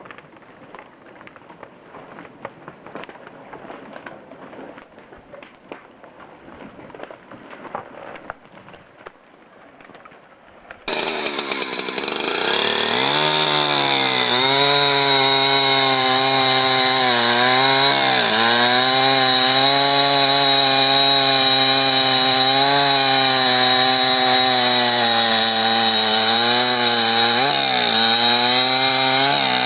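Faint background noise for about ten seconds, then a chainsaw cuts in suddenly, running loud and steady at high revs; its pitch sags briefly a few times as the chain is loaded in the wood and then picks back up.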